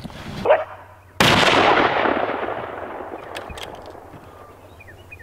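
A single rifle shot about a second in, its report echoing and dying away slowly over the next few seconds.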